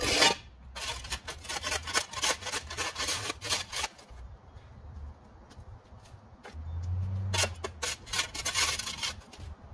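A loud scrape at the very start, then a run of quick scraping strokes for about three seconds, and another run near the end with a brief low hum just before it.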